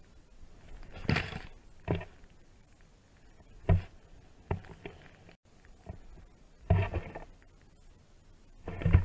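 Powder snow spraying against a pole-mounted action camera and wind hitting its microphone while riding deep powder: short rushing bursts every second or two, the loudest about a second in, near seven seconds and at the very end.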